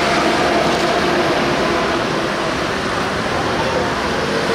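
Steady street traffic noise, a dense even roar with a faint engine hum underneath.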